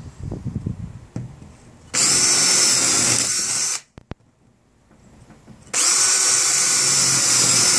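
Electric power drill boring a starting hole in wood: it runs at a steady speed for about two seconds, stops, and starts again about two seconds later.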